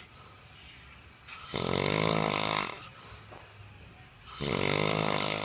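An older man snoring in his sleep: two long, loud snores about three seconds apart, each lasting over a second, with quiet stretches between them.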